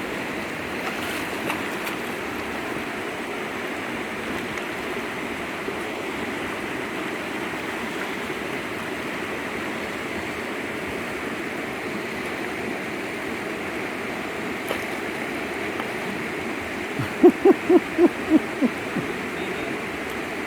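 Steady rushing of the Kalama River flowing past. Near the end comes a quick run of about six short, pitched hooting calls.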